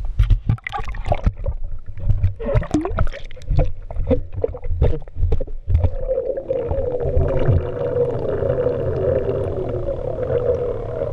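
Water splashing and gurgling around a camera held at the surface by a swimming snorkeler, with sharp knocks and gushes as it dips in and out. About six seconds in it stays underwater, and the sound turns into a steady, muffled underwater drone with a low rumble.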